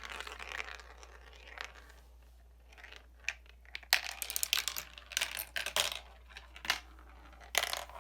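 A marble running down a toy marble run: a faint rolling rattle at first, then a string of sharp clicks and clatters as it drops and knocks along the track pieces, busiest through the middle and again near the end.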